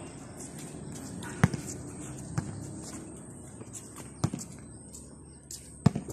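A basketball bouncing on an outdoor concrete court: four separate thuds, irregularly spaced about a second or more apart, with footsteps on the concrete in between.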